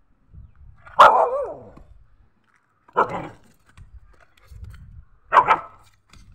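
Dog barking three times, about two seconds apart; the first bark is the loudest and longest, dropping in pitch as it trails off.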